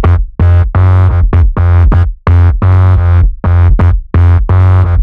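Loud electronic bass track made to make a speaker vibrate: deep, buzzy synthesizer bass notes pulsing in short chopped blocks about twice a second, with brief drop-outs between them.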